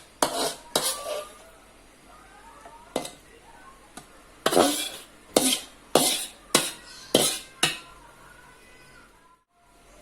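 Kitchen utensils clattering against pots or dishes: about nine sharp knocks with short ringing tails, irregularly spaced and bunched near the middle.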